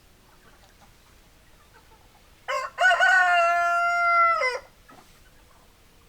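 Rooster crowing once, a couple of seconds in: a short opening note, then a long held call that drops away at the end.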